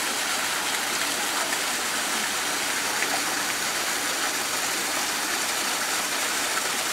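Steady rush of running water: an even, unbroken hiss with no breaks or changes.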